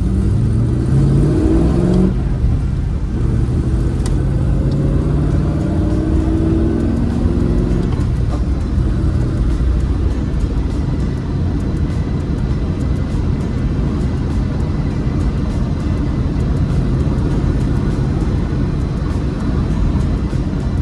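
Rover SD1 Vitesse's 3.5-litre V8 accelerating up through the gears: the engine note rises, drops at a gear change about two seconds in, climbs again, then settles into a steady cruise with road and wind noise.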